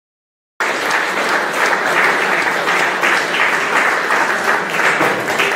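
Audience applauding, many hands clapping in a dense steady patter; it cuts in suddenly about half a second in.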